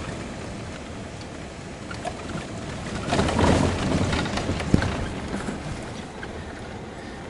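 Car cabin noise while driving on a rough dirt road: a steady rumble of the car and tyres, with a louder stretch of rattling about three seconds in and a sharp knock near five seconds.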